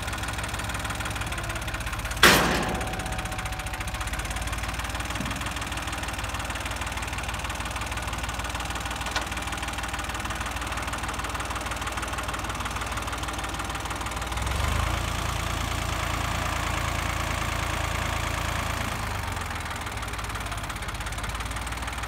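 Ford 1910 compact tractor's three-cylinder diesel engine running steadily at low speed while its front loader carries a steel frame. A loud metal clank with a short ring comes about two seconds in, and the engine works a little harder for a few seconds past the middle.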